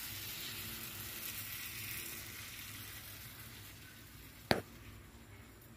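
Batter fritters deep-frying in hot oil, a steady sizzling hiss that slowly fades. One sharp knock about four and a half seconds in is the loudest sound.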